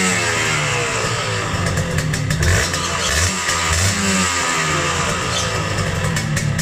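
Kawasaki Victor 150's single-cylinder two-stroke engine being revved while the bike stands still, blipped up and dropping back several times, through an aftermarket expansion-chamber exhaust with a chrome silencer.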